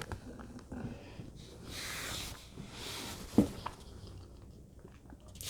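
Close-miked eating sounds: quiet chewing and small mouth clicks of someone eating avocado, with two soft breathy hisses and one sharper wet smack about three and a half seconds in.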